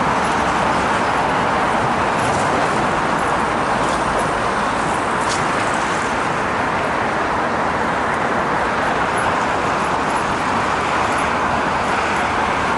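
Busy city road traffic: a steady, even noise of tyres and engines blending together, with no single vehicle standing out.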